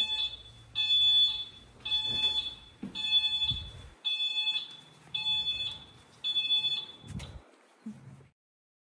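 AEV electric golf cart's reverse warning beeper sounding a high beep about once a second as the cart backs up, a signal that it is in reverse. The beeping stops about seven seconds in.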